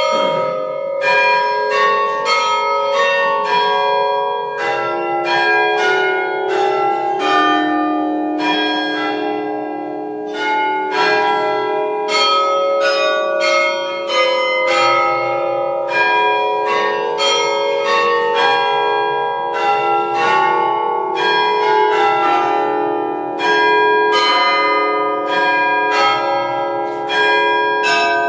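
Several church bells of different pitches struck one after another, roughly two strikes a second, with each bell's tones ringing on and overlapping the next.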